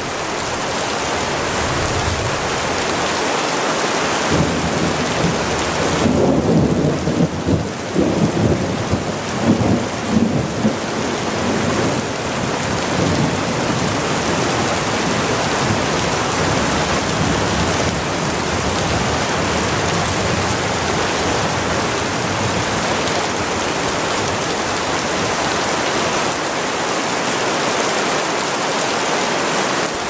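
Rain falling steadily, an even rushing hiss, with a low, uneven rumble swelling in about six seconds in and fading by about eleven seconds.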